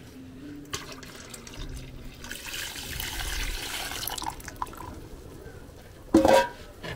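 A thin stream of white liquid pouring into a large aluminium pot of yellow soup, splashing onto the surface for about two seconds in the middle. A brief loud knock comes near the end.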